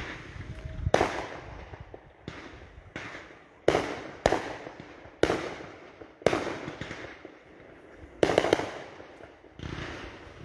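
Fireworks exploding: a string of about nine sharp bangs at irregular intervals over several seconds, each fading away in an echo, with a double bang near the end.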